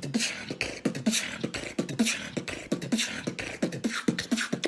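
Human beatboxing: a fast, even freestyle beat of mouth-made bass kicks that drop in pitch, snare-like hisses about once a second and quick hi-hat clicks between them.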